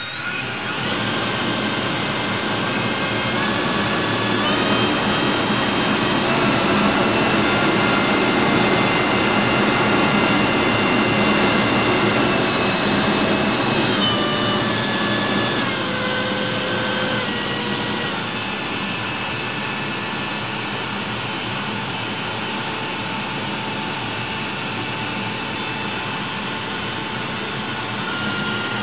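Schubeler 93mm HST electric ducted fan running up in throttle steps: a loud whine with a rush of air climbs in stages over the first several seconds and holds high. About halfway through it is throttled back in steps and settles to a lower steady whine.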